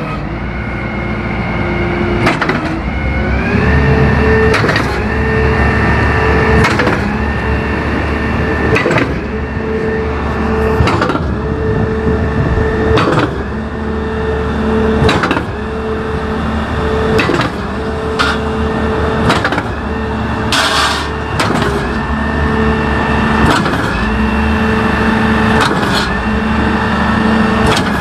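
S.H.I concrete pump running: a steady engine and hydraulic drone, with a sharp clunk about every two seconds as the pumping cylinders change stroke.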